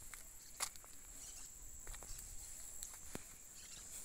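Faint footsteps scuffing on a concrete slab, a few soft taps with the loudest a little over half a second in, over a steady high-pitched insect drone.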